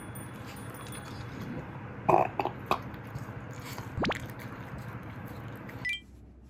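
A black mame-shiba (miniature Shiba Inu) burps loudly once about two seconds in, followed by two shorter, quieter sounds, right after finishing its meal.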